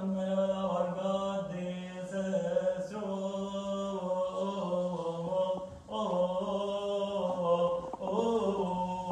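Voices chanting a Coptic Orthodox liturgical hymn in long, drawn-out notes over a steady low held tone, with a short break for breath about two-thirds of the way through.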